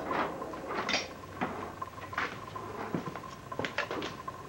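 Light metallic clinks, knocks and scrapes, about eight scattered through a few seconds, as steel tongs and bar stock are handled on a blacksmith's anvil. A faint steady high whine runs underneath.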